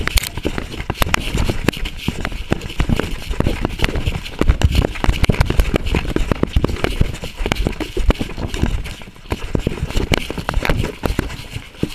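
A coonhound running through woods, heard from a camera on its collar: quick, irregular footfalls, crackling brush and leaves, and the camera knocking against the collar as it runs a track.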